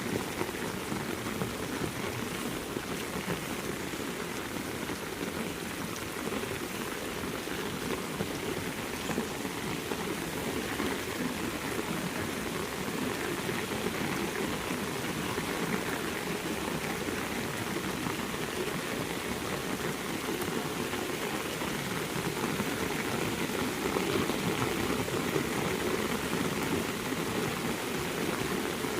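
Heavy rain falling steadily, a dense, even patter of drops hitting surfaces, growing slightly louder near the end.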